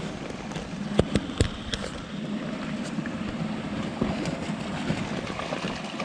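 Steady rush of running water from a small creek, with a few sharp knocks about a second in.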